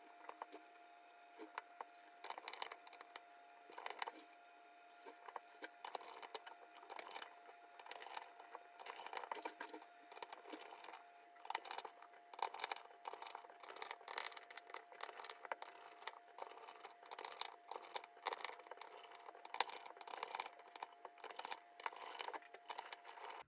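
Precision screwdriver backing out small screws from an aluminium shield plate: faint, irregular metallic clicks, ticks and light scrapes, with a faint steady tone underneath.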